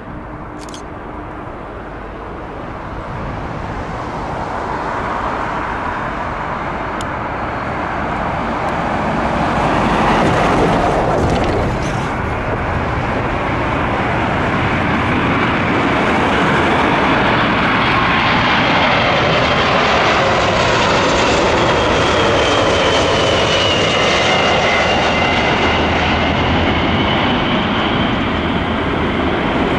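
Boeing 747-436's four Rolls-Royce RB211 turbofans on landing approach: the jet noise swells as the airliner comes in low overhead, then holds loud. A high engine whine that bends in pitch runs through the later part.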